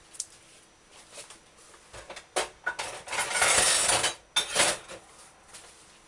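Kitchen handling sounds: a few light taps and clinks, then a loud crinkling rustle lasting about a second from a plastic spice packet being handled and set down, with a shorter rustle right after.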